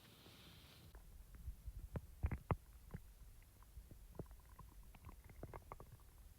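A woman's stomach growling and gurgling after eating: a low rumble with a cluster of loud gurgles about two seconds in, then a run of small bubbling squeaks.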